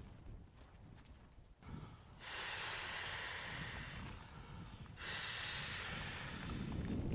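Two long breaths blown by mouth into the valve of a Therm-a-Rest XLite inflatable sleeping pad, each a steady rushing exhale of about two seconds; the first starts about two seconds in, the second about five seconds in.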